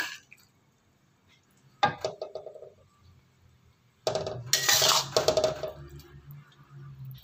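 Metal spatula clanking and scraping against a wok as stir-fried water spinach is scooped out, the wok ringing briefly after each strike: one clank about two seconds in, then a longer scraping clatter from about four to six seconds.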